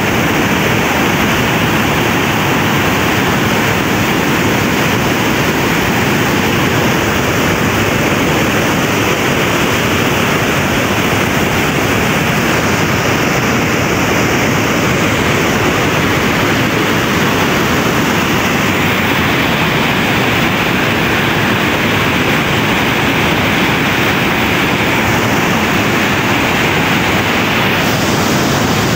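Swollen, muddy floodwater rushing and tumbling over a drop: a loud, steady rush of water that never lets up.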